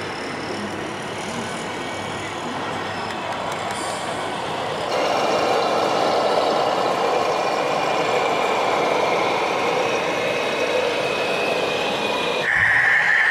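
Radio-controlled model trucks running, a steady mechanical truck-like drone with a few held tones over the din of a busy hall; it turns louder and changes about five seconds in.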